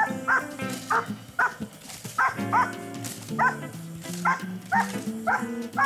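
A nine-month-old German Shepherd barking hard and repeatedly, about two barks a second, at a decoy during protection training, over background music.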